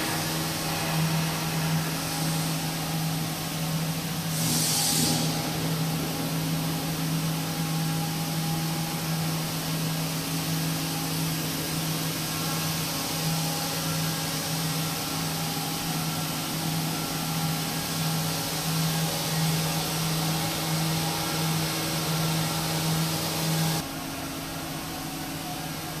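Double jersey circular knitting machine running at speed: a steady low hum with a constant hiss of the rotating cylinder and yarn feeders. There is a short burst of hiss about five seconds in. Near the end the hum drops out and the sound becomes quieter.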